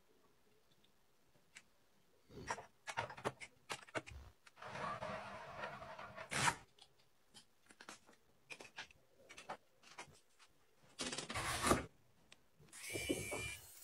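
Close handling sounds of plastic and glass kitchen containers: scattered clicks and taps, with longer scraping, rustling stretches about five seconds in and again about eleven seconds in.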